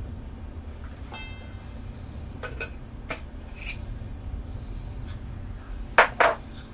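Spice jars being handled over a stainless mixing bowl and on a tiled counter: a short ringing clink, a few light taps, then two sharp knocks a quarter second apart near the end as a jar is set down on the tile. A steady low hum lies underneath.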